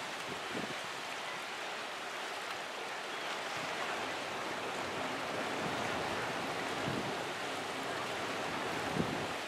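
Steady rush of wind and sea water, with low gusts buffeting the microphone now and then and a sharper buffet near the end.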